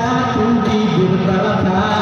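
Group singing: many voices singing a song together.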